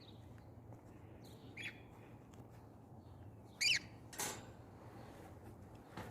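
Lorikeets giving a few short, high squawking calls, the loudest about three and a half seconds in.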